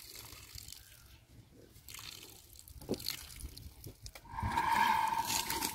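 Water dripping and trickling with a few light knocks, then a louder gurgling pour for about a second and a half near the end.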